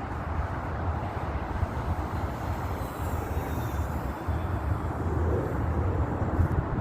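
Wind buffeting the microphone in a steady low rumble, with a faint high whine that swells and fades about three seconds in.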